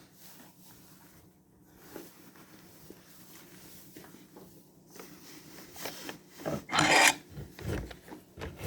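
Scraping and rubbing noises with a few knocks, starting about five seconds in and loudest around seven seconds, as things are handled on arrival at the chicken shed.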